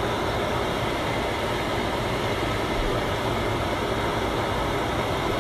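Whole red snapper frying in hot oil in a pan, the oil sizzling steadily.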